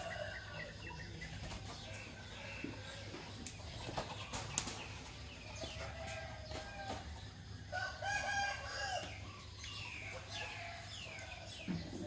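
A rooster crowing in the morning, its call loudest about eight seconds in, over many short chirps from small birds. A couple of sharp clicks near the middle.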